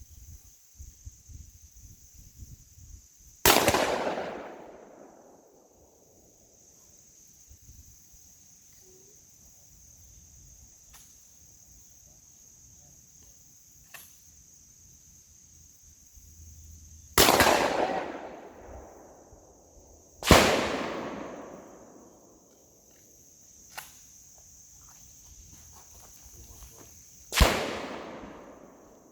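Four loud gunshots, widely spaced: one a few seconds in, then three more in the second half, the middle two about three seconds apart. Each crack is followed by about two seconds of echo dying away. A steady high insect buzz runs underneath.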